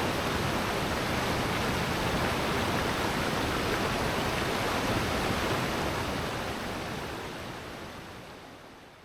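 Rushing water of a rocky valley stream and waterfall: a dense, steady rush that fades out over the last few seconds.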